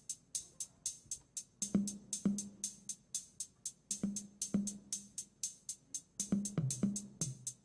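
Drum-machine beat opening a song: steady hi-hat ticks about four to five a second, joined about two seconds in by low, pitched drum hits that come more often near the end.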